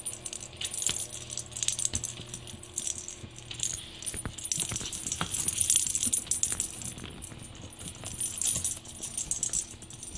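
Hanging plastic rattle-ball cat toy rattling in irregular bursts as kittens bat and bite it, with small knocks against the play tent.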